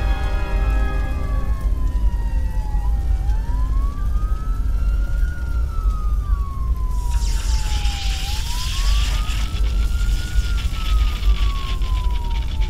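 A wailing siren rising and falling slowly, about once every five seconds, over a steady low rumble. From about seven seconds in, a hiss joins it.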